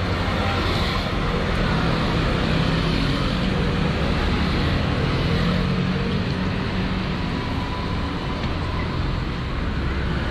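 Steady street traffic noise of passing road vehicles, with a low engine hum that swells about midway.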